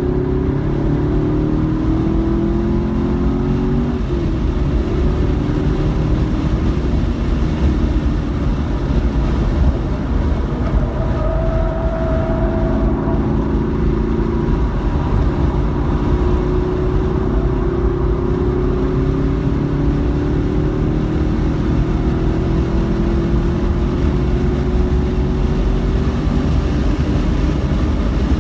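Car engine heard from inside the cabin under acceleration on track, its pitch climbing, dropping back about 4 s in and again around 14 s in, then rising in one long climb as the car speeds up to about 130 mph. A steady low rumble of wind and road noise runs underneath.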